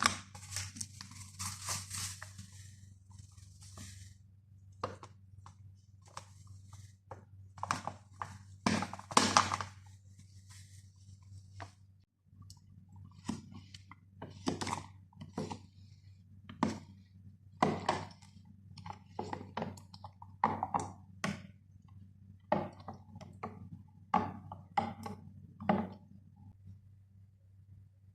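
Packaging and items being handled: rustling for the first few seconds, then scattered short thumps and knocks, over a steady low hum.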